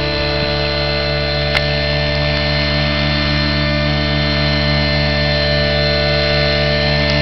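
Align T-Rex 700 radio-controlled helicopter with a smoking nitro glow engine, running at a steady pitch with its rotors as it flies low, with one brief click about a second and a half in.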